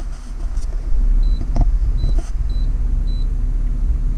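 About four short, high electronic beeps from a fuel station pay terminal's keypad as its buttons are pressed, over the low, steady idle of a BMW E36's engine.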